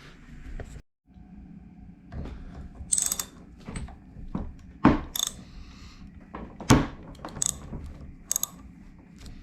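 Ratchet wrench clicking in short, irregular bursts, with clinks of metal tools, as the bolts on top of an outboard's electric starter motor are loosened.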